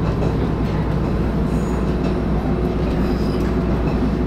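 Interior running noise of a moving diesel railcar: a steady low rumble of engine and wheels on the track, with a faint steady hum over it.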